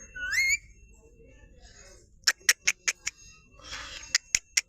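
Indian ringneck parrot giving a short rising squawk, then, after a pause, a run of sharp clicks and a brief scratchy rustle.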